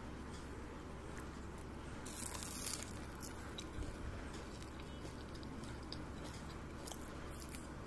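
Crisp crunch of teeth biting into a freshly fried semolina (suji) medu vada, loudest about two seconds in, followed by fainter crunching as it is chewed.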